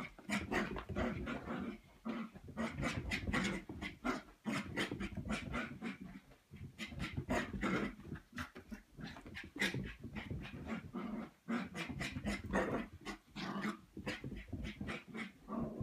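Cavapoo puppy (cavalier King Charles spaniel × toy poodle) panting in quick breaths and growling playfully during a bout of zoomies. The sounds come in rapid, uneven spurts with a few short breaks.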